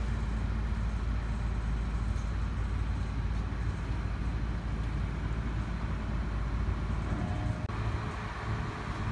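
Diesel engine of a lattice-boom crane running steadily as a deep rumble while it hoists a counterweight block.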